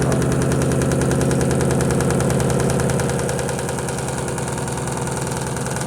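Electrolux Perfect Wash 16 kg washing machine in its spin cycle, running with a loud steady hum and a fast, even rattling knock. The noise goes with the machine shaking as it spins, which the owner calls not good.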